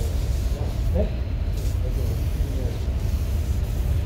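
Steady low rumble of workshop background noise, with faint voices in the background and a few light ticks.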